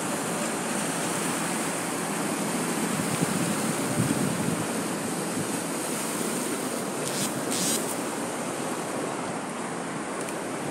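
Steady rushing noise of sea wind and surf at a seafront, with wind buffeting the microphone. A brief high hiss about seven seconds in.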